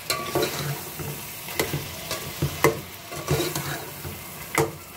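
Spatula stirring and scraping potato and minced-meat keema in a metal pot, with several sharp knocks of the spatula against the pot over a steady sizzle of frying. The masala is being fried down (bhuna) on high flame before water goes in.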